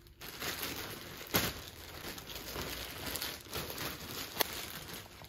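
Plastic poly mailer bag crinkling as it is handled and torn open, with sharp crackles about a second and a half in and again near the end.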